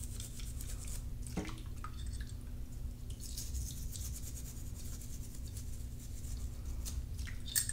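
Thick valve brush scrubbing through the holes of a wet trumpet piston in soapy water, a run of quick scratchy strokes about three seconds in and again near the end, to clear the oil film off the piston. A steady low hum sits underneath.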